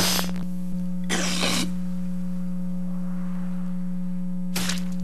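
A man hawking up phlegm and spitting: a harsh, noisy throat-clearing snort at the start, another about a second later, then a short spit about four and a half seconds in, all over a steady low electrical hum.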